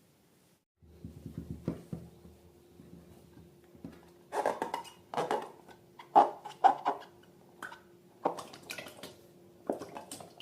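Slime being squished and worked by hand: irregular wet clicks and squelches, coming in louder clusters from about four seconds in, over a faint steady hum.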